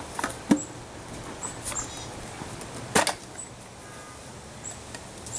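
Lid of an old metal tobacco tin being pried off by hand: a few small metallic clicks, then a sharp click about three seconds in as the lid comes free.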